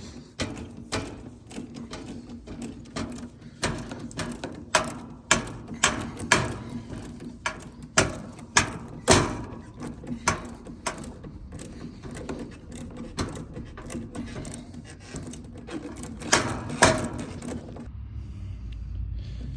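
Irregular sharp metallic clicks and knocks, one or two a second, as a wrench works the heat pump's service valve closed to finish the pump-down; they stop near the end, leaving a low rumble.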